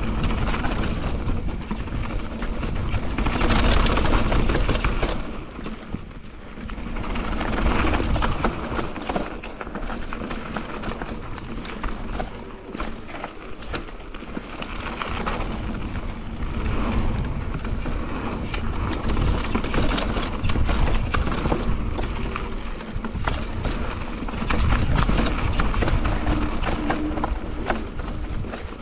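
Mountain bike descending a steep trail over roots and rocks: tyres rolling on dirt and a constant clatter of knocks and rattles from the bike over the bumps, getting louder and softer with the terrain.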